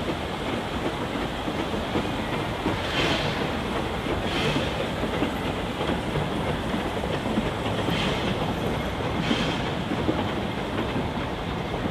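Narrow-gauge heritage steam train's carriages rolling across a trestle bridge: a steady rumble of wheels on rail, with brief clacks coming in pairs every few seconds as the carriage wheels cross rail joints.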